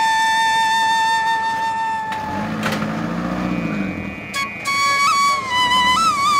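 Background flute music: one long held note, then a gap of about two seconds with a brief low hum, then more flute notes with short slides.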